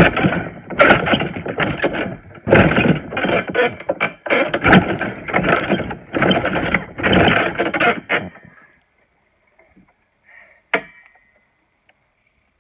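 Garden trampoline's springs and mat sounding with each bounce, about one bounce a second, stopping about two-thirds of the way through. Then near quiet apart from one sharp click.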